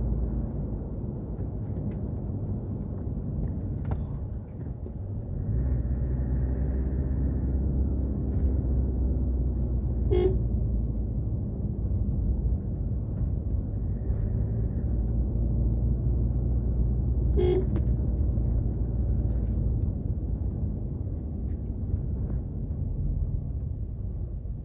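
A vehicle's engine and road noise run steadily while driving, the engine note rising and filling out about five seconds in. A short horn toot sounds twice, about ten and seventeen seconds in.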